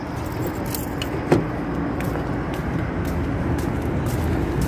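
Steady noise of road traffic, with one sharp click a little over a second in.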